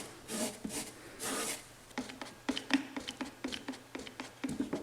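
Hand work on a wooden drawer: a few short rubbing strokes, then a string of small clicks and light knocks, as excess glue is wiped off and a clamp is set on a freshly glued drawer bottom.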